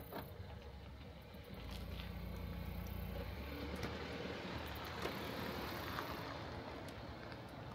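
Small SUV driving slowly across an asphalt parking lot: a faint, low engine rumble that swells about a second and a half in and holds steady.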